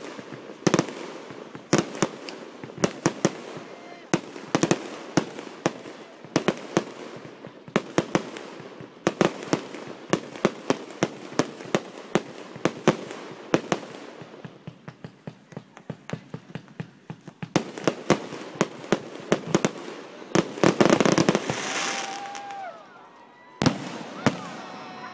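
A fireworks display going off: a rapid, irregular series of sharp pops and bangs from launching and bursting shells, with a louder, denser stretch about twenty seconds in.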